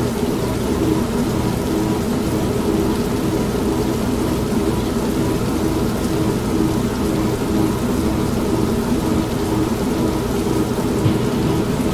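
Old manual washing machine running with a steady motor hum, mixed with continuous rain and a low rumble of thunder.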